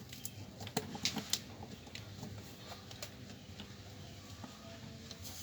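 Quiet background with a few light clicks about a second in. No loud hum is heard from the home theater amplifier, whose ground fault has just been fixed.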